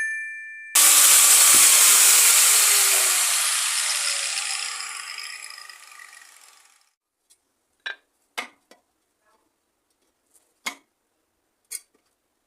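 Electric angle grinder running, then winding down for several seconds with its pitch falling until it stops. A few short clicks and knocks follow as tools or workpieces are handled.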